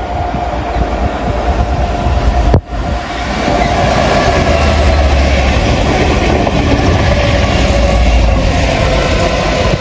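A freight train hauled by British Rail Class 66 diesel locomotives passes close by: engines running, with the wheels rolling and clicking over the rail joints. It grows louder over the first few seconds and stays loud, with a momentary dropout about two and a half seconds in.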